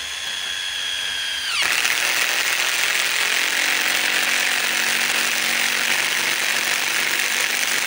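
DeWalt DCF860 cordless impact driver on its slowest speed setting, driving a long screw into a wooden log. At first the motor whines steadily. About a second and a half in, the pitch drops and the impact mechanism starts hammering, a loud continuous rattle that holds steady.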